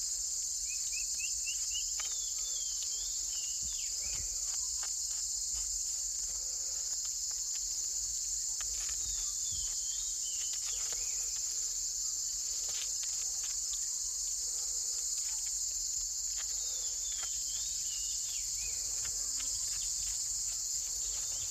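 Steady high-pitched chorus of tropical forest insects, with a few short rising chirps and scattered light clicks over it.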